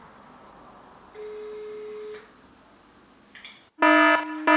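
Telephone ringback tone through a smartphone's loudspeaker: a single steady tone about a second long, the signal that the called line is ringing. Near the end a much louder harsh buzzer starts sounding in short repeated pulses.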